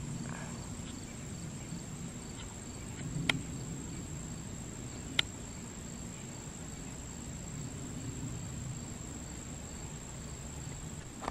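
Faint, steady low rumble of a twin-engine Boeing 767-300ER jet airliner climbing out overhead after take-off, with a constant high insect trill over it. Two short clicks stand out, about three and five seconds in.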